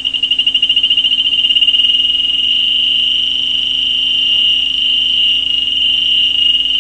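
The Beep Mat electromagnetic survey instrument's buzzer sounding one long high-pitched tone, fluttering rapidly for about the first two seconds and then holding steady. It is the signal that the mat is lying over a conductor, such as a conductive mineralized outcrop or boulder under the overburden.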